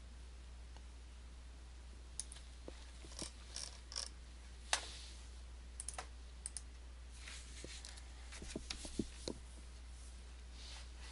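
Scattered, irregular clicks of a computer mouse and keyboard, some coming in quick clusters, over a steady low hum.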